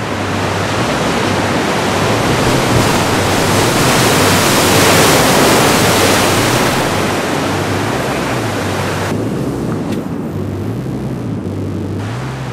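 Loud rushing wash of breaking surf over a low bass line that steps back and forth between two notes. The hiss swells toward the middle and its upper part drops out suddenly about nine seconds in.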